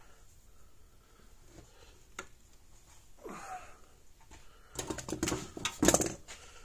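Electric fence charger arcing across a rusty spot: a burst of rapid, sharp snapping crackles that starts about five seconds in and lasts about a second and a half, loudest near its end.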